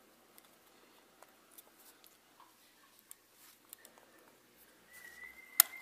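Small plastic parts of a Canon EF 50mm f/1.8 II lens being handled and pressed together: faint scattered ticks, then a short high squeak and a sharp snap near the end as the circuit-board assembly clicks onto the lens barrel.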